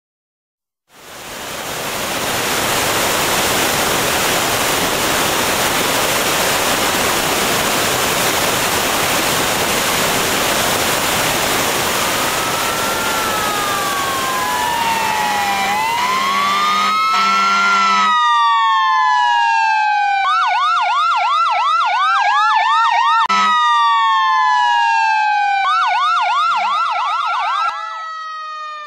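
A loud, steady rushing noise with siren wails rising and falling beneath it. About eighteen seconds in the noise cuts off, leaving emergency vehicle sirens in several overlapping tones, sweeping slowly up and down and twice breaking into a fast yelp.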